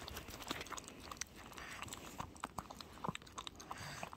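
Small dog eating chicken porridge from a bowl: quick, irregular wet smacks and clicks of lapping and chewing.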